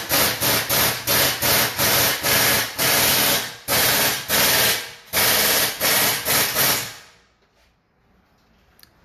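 Workshop noise: loud, regular bursts of hissing, about three a second, that stop about seven seconds in.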